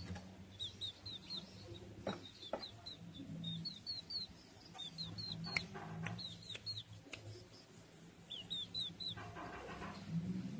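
Serama bantam chickens calling: runs of short, high, falling peeps throughout, with a few sharp knocks near the middle. A low steady hum runs underneath.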